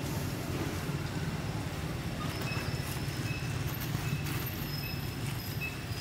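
Outdoor ambience: a steady low rumble, with faint short high-pitched peeps and a few light clicks from about two seconds in.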